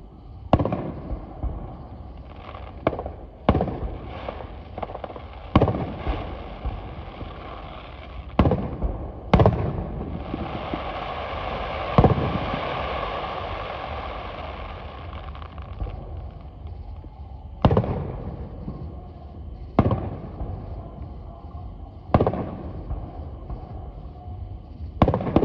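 Aerial firework shells bursting overhead, about eleven sharp booms at irregular intervals. In the middle, a steady hiss runs on for several seconds.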